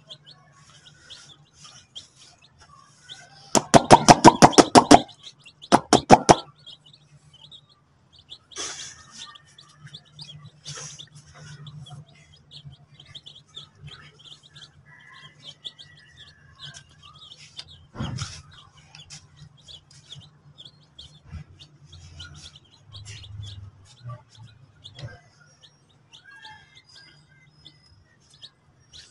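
Baby chicks cheeping in scattered short, high calls. A loud rapid run of taps comes about four seconds in, a shorter run shortly after, and a single sharp tap later on.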